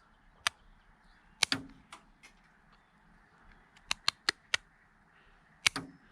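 A plastic credit card being cut into thin strips: about ten sharp, irregular snipping clicks, with a quick run of four about two-thirds of the way through.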